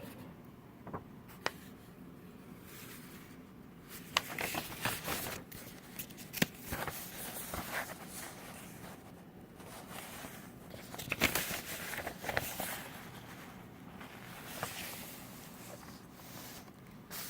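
Printed paper drawings being handled: sheets rustling and crinkling in irregular bursts, with a few sharp clicks.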